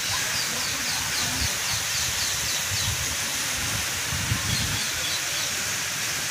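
Fountain jets spraying into a pond give a steady hiss of falling water. Over it a bird sings two runs of quick, high, falling chirps, about four a second, the first from near the start and the second shorter, a little past the middle.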